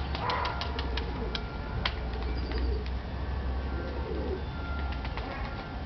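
A bird giving low, soft cooing calls, with a few sharp clicks in the first two seconds and a steady low rumble underneath.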